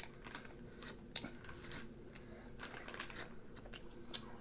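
Close-miked chewing of a mouthful of bagel burger: faint, irregular mouth clicks and smacks, several a second.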